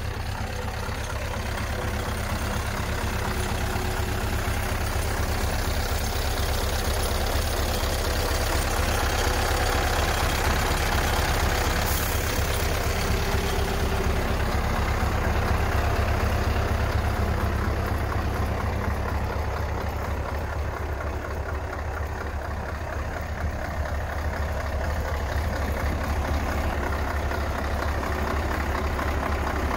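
Scania R500 truck's 16-litre V8 diesel idling steadily with a deep, even hum, getting somewhat louder through the middle stretch and then easing. A short click comes about two-fifths of the way in.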